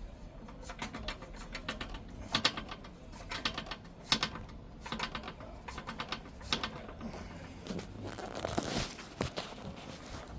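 Short runs of rapid metallic clicks from a ratchet wrench working bolts on the motorcycle, with a brief scraping rattle of metal near the end.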